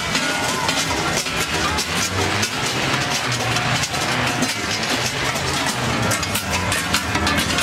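Large cowbells on passing Krampus costumes clanging in a dense, irregular jangle, over a steady low engine-like drone.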